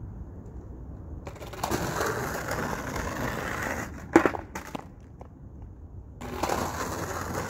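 Skateboard wheels rolling over rough asphalt, broken about four seconds in by a sharp clack of the board hitting the pavement and a few lighter knocks. The rolling starts again about six seconds in.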